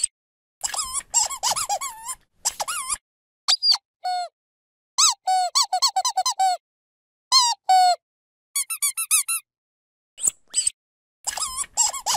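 Dog squeaky toy squeezed in quick runs of squeaks, about eight short bursts with silent gaps between them. Each squeak wobbles up and down in pitch.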